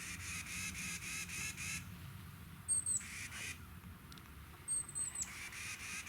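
Wild birds calling: short, very high, thin whistled notes that drop off at the end, alternating with bursts of fast, evenly pulsed chirping.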